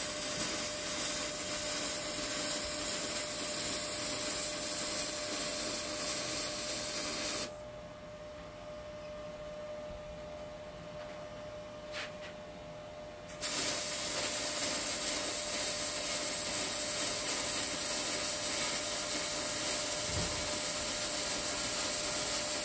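Wire-feed welding arc on steel plate, a steady hiss over a faint steady hum. The arc stops about seven seconds in, there is a single click during the pause, and the arc strikes again about thirteen seconds in and keeps running.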